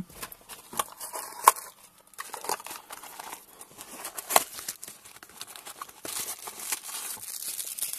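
Plastic bag being handled and crinkled, with scattered rustles and a couple of sharp knocks. The crinkling grows denser in the last two seconds.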